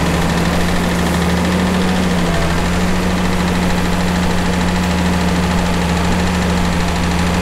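International Harvester farm tractor's engine running steadily while its front loader sets down a round hay bale, with a slight shift in engine pitch a couple of seconds in.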